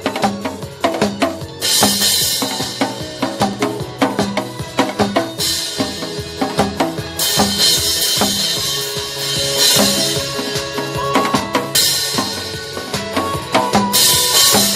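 Janggu, the Korean hourglass drum, struck in fast, dense rhythms over a recorded backing music track.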